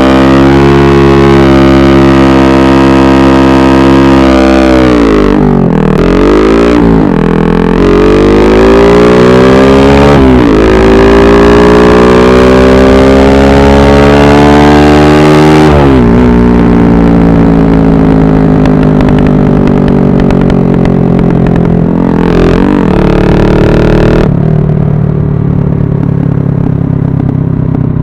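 Bajaj Pulsar 135 LS single-cylinder engine through a loud aftermarket free-flow exhaust, held at high revs and then dropping and climbing slowly again three times over several seconds each. After that it falls to a lower steady speed, with one short blip of the throttle near the end.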